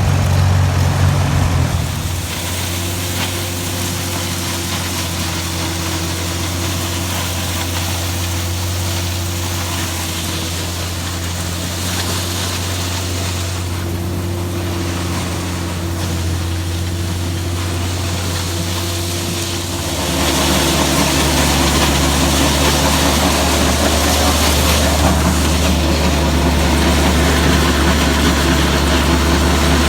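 Farm tractor engine running steadily. About 20 seconds in the pitch drops to a lower, louder hum.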